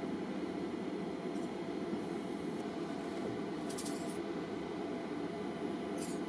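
Steady low hum of room noise, with a few faint, short clicks.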